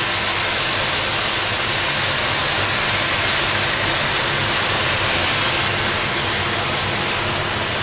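Hot, freshly baked baklava sizzling as sugar syrup is poured over it straight out of the oven: a steady, even hiss.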